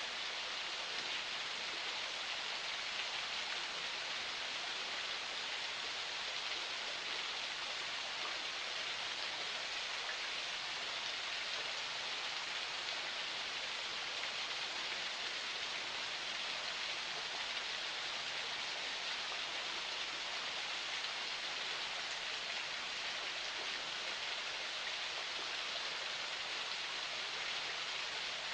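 Forest spring flowing: a steady, even splashing hiss of running water.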